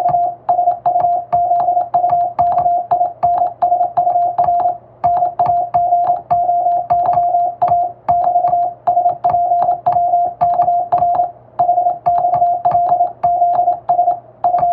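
Morse code sent by hand on a telegraph key: a single steady tone of about 700 Hz keyed into dots and dashes, grouped into letters and words with short pauses between. Each element begins with a faint click.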